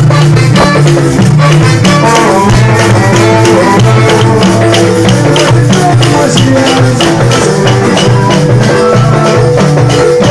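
Upbeat Latin-style band music: a steady bass line under drums and a rattling shaker keeping a fast, regular beat.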